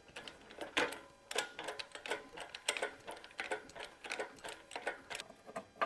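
A ratchet clicking in short, uneven strokes, about two or three sharp metallic clicks a second, during work on a 1936 John Deere DI tractor.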